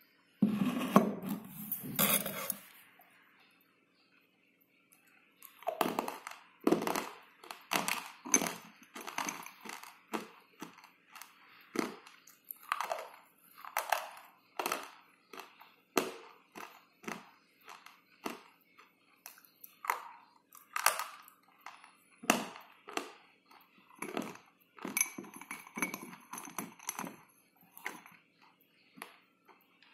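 Slate pencils being bitten and chewed: a dense burst of crunching in the first couple of seconds, a short pause, then a long run of crisp, separate crunches, about one or two a second.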